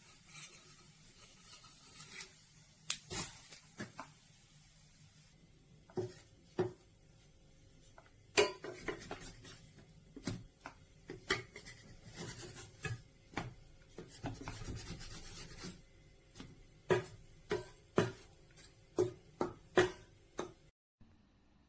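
Handling noises: irregular knocks and clinks with some rubbing and scraping, as of kitchenware being moved and touched. The sound cuts off abruptly near the end.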